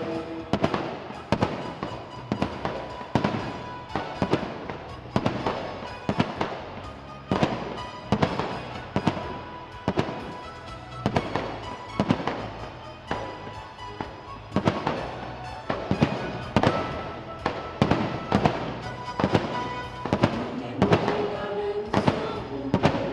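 Aerial fireworks shells bursting in an irregular, rapid string of sharp bangs, one to three a second, over background music.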